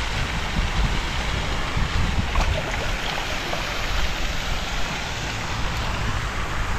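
Wind buffeting an action camera's microphone: an uneven low rumble under a steady hiss.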